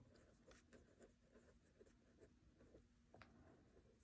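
Faint scratching of a pen writing on notebook paper, in a run of short strokes.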